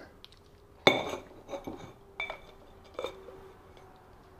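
Light clinks and knocks of hard parts being handled as a drill motor is pushed into the back of a tube housing and the tube is slid over the coupling. The sharpest knock comes about a second in, with a few lighter clicks after it.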